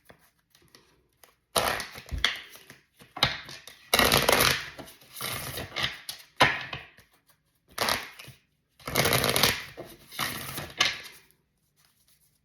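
A deck of tarot cards being shuffled and handled, in a series of noisy bursts of a second or two each with short pauses between.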